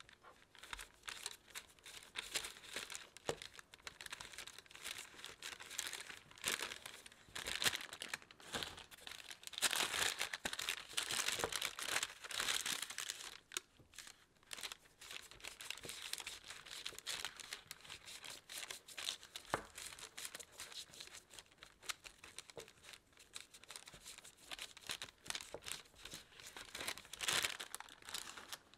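Parchment paper crinkling and rustling as a log of cookie dough is rolled and shaped in it by gloved hands, with small crackles throughout and loudest about ten to thirteen seconds in.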